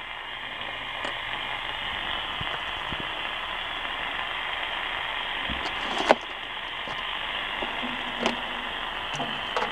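Steady hiss of radio static from a receiver's speaker, with a few faint clicks, the sharpest about six seconds in.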